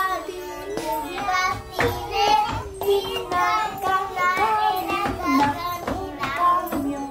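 A group of three-year-old children singing a Christmas song together in unison, with music playing behind them.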